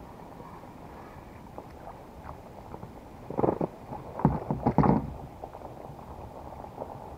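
A run of knocks and thumps, loudest between about three and five seconds in, as a small fish on the line is lifted aboard an inflatable boat and handled against its tube, over a steady rush of wind and water.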